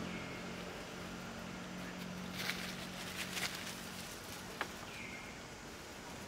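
Forest ambience: a steady low hum that fades about four seconds in, with a few short crackles and rustles of dry leaves and twigs as a young macaque climbs, and two brief falling chirps.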